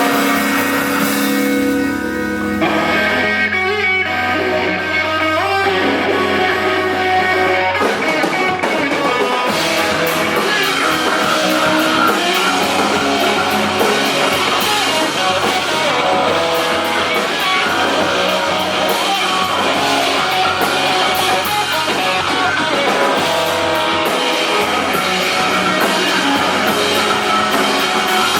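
Live math-rock band playing electric guitars over drum kit. A sparser guitar passage without cymbals gives way to the full band, drums and cymbals crashing in, about eight seconds in.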